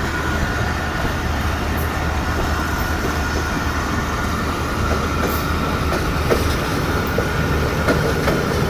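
Pakistan Railways express trains running side by side on parallel tracks, with an even rumble of wheels on rails. A steady high tone runs through it, and a few faint clicks come near the middle and end.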